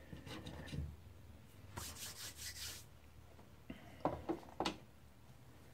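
A cloth rubbing and wiping over the plastic parts of a laser printer's drum unit, with a few light plastic clicks and knocks as the parts are handled a little after the middle.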